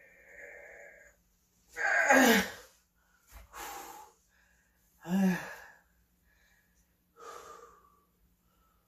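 A man straining through heavy 80 kg barbell bench-press reps: four forceful wheezing exhales and grunts, about one every one and a half to two seconds. The loudest, about two seconds in, is a groan falling in pitch.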